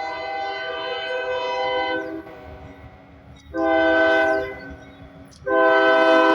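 Union Pacific locomotive's air horn sounding a chord: a held blast that stops about two seconds in, a short blast, and then another long blast starting near the end, over the low rumble of the train.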